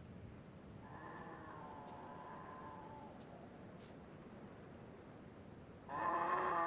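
Crickets chirping in a steady high pulse, about four chirps a second. Near the end a louder, steady humming sound comes in suddenly.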